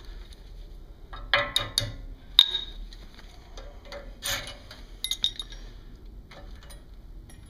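Steel-backed brake pads clinking and scraping against the caliper as they are worked out of a 2007 Toyota Tundra's front brake caliper by hand. It is a scattered series of light metallic clicks, with a sharper one about two and a half seconds in.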